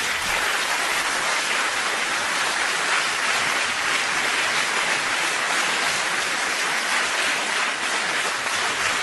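Live audience applauding: dense, even clapping that starts suddenly and holds steady.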